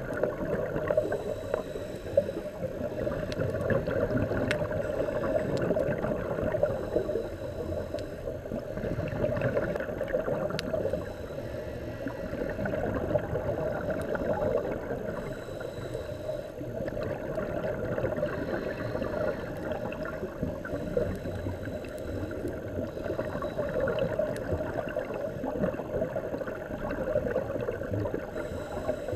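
Muffled underwater rushing and gurgling heard through a camera housing on a scuba dive, swelling every few seconds with the diver's regulator bubbles.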